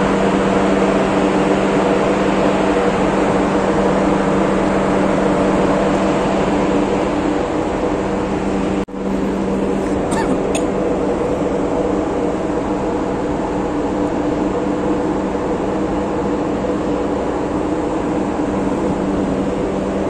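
Steady machinery hum aboard a cargo ship: a low steady tone with several higher tones over an even rush. It cuts out for a moment about nine seconds in and comes back unchanged.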